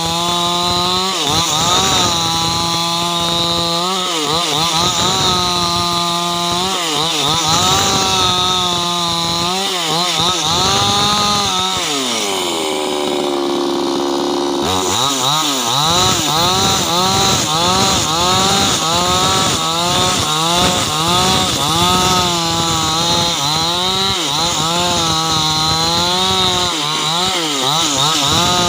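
Ogawa two-stroke chainsaw ripping hardwood lengthwise, the engine held at high revs with its pitch sagging and recovering every second or two as the chain bites into the cut. About twelve seconds in, it drops to a lower, steadier pitch for a couple of seconds, then revs back up and carries on cutting.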